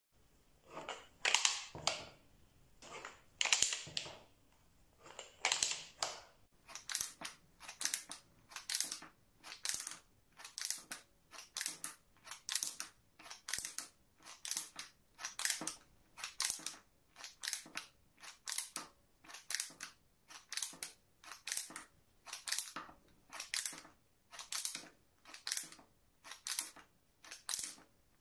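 Wooden flip calendar's knob being turned over and over, each turn flipping a wooden date card with a short wooden clack. A few uneven clacks at first, then a steady run of about two a second.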